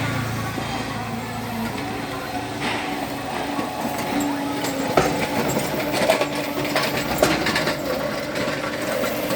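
A small electric backhoe's 5 hp motor and hydraulics running with a steady hum whose tone comes and goes, and several sharp metal clanks from about halfway on.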